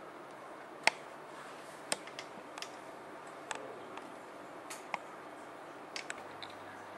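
Light, irregular clicks and taps, about a dozen spread over several seconds, from handling at a light microscope and its glass slides, over a steady low hiss.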